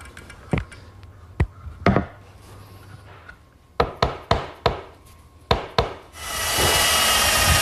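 Wooden frame pieces knocked and tapped together, about nine sharp knocks, as glued parts are fitted into their dados. About six seconds in, a power drill starts and runs steadily with a high whine, pre-drilling holes for screws.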